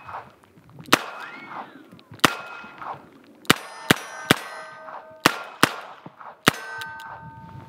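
A Rock Island Armory AL22 .22 LR revolver fires about eight shots at an uneven pace, slower at first and then in quicker pairs. After the shots, struck steel targets ring with a clang that hangs on.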